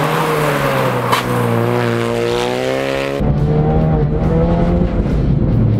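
Ford Focus RS rally car engine revving hard under throttle as the car slides on ice and snow, its pitch dipping and then climbing. One sharp click about a second in. A little over three seconds in, the engine is heard from inside the cabin, with a heavier low rumble.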